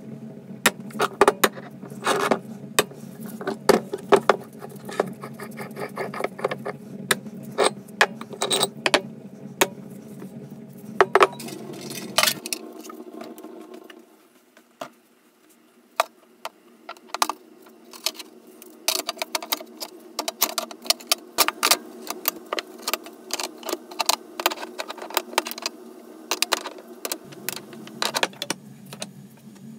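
Metal dumbbell parts clinking and tapping as they are handled, in many sharp, irregular knocks. A steady low hum runs underneath, drops out about twelve seconds in and comes back near the end.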